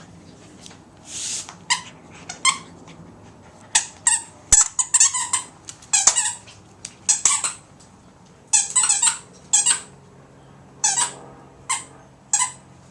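Squeaky toy being chewed by a dog: irregular short squeaks, some single and some in quick runs, with a sharp click about four and a half seconds in.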